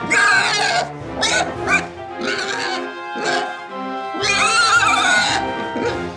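A series of about five loud animal cries, the last one longest, over background music.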